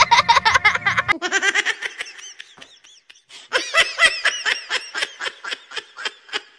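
A baby laughing in quick repeated bursts, pausing briefly about three seconds in, then laughing again. It cuts in abruptly about a second in, after a snippet of music.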